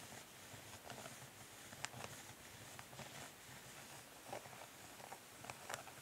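Long natural fingernails tapping quickly and lightly on a plastic makeup palette: faint, irregular little clicks, with a few sharper taps standing out.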